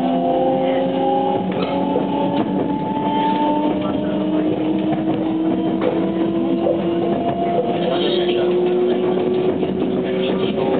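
JR West 287 series electric train heard from inside the passenger cabin: the traction motors whine in several steady tones whose pitch climbs slowly as the train gathers speed, over a constant rumble of wheels on rail.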